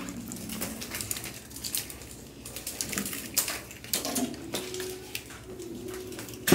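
Plastic clothes hangers clicking and knocking together, with fabric rustling, as garments are handled. A few faint, short low tones sound behind the handling.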